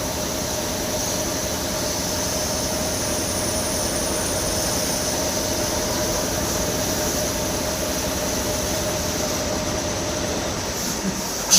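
CNC lathe running while turning an EN8 steel bearing sleeve: a steady machine drone with a constant mid hum and a high whine, then a short sharp knock near the end.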